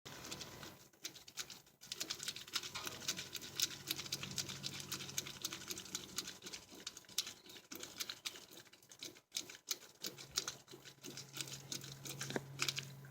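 Rapid, uneven light clicking and ticking of metal parts and tools as a new outer tie rod end is threaded onto the inner tie rod, with a faint steady hum in parts.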